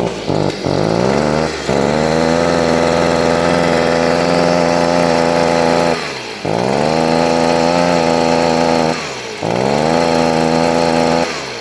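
Stihl leaf blower engine revved three times. Each time the pitch climbs, then levels off and holds instead of reaching full speed, and it drops back between pulls and settles to idle near the end. It won't rev all the way up because the muffler's spark arrestor screen is clogged with carbon.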